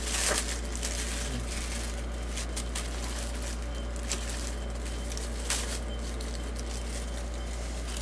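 A steady low hum, with a few brief rustles and taps of cardboard as the box flaps are handled.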